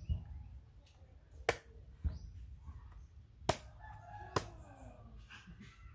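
Knife chopping into a green coconut's husk: three sharp strikes, the first about a second and a half in, then two more close together near the middle.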